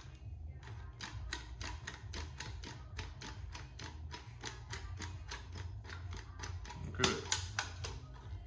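Plastic slime-ball maker toy being pumped by its squeeze handle, its ratchet giving rapid, evenly spaced clicks as slime is forced into the balloon, with a louder burst of noise about seven seconds in.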